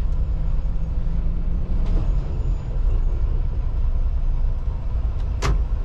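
Steady low rumble of a Freightliner semi-truck's engine and road noise heard inside the cab while driving, with a single sharp click about five and a half seconds in.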